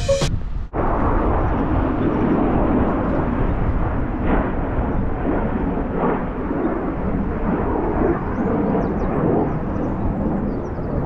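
Steady distant rumble of two fighter jets flying overhead, mixed with wind buffeting the microphone.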